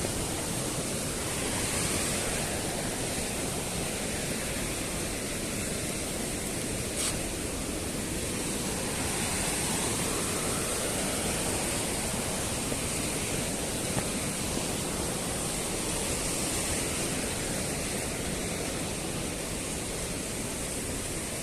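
Steady rush of white water from a mountain stream tumbling through a gorge, with a brief click about seven seconds in.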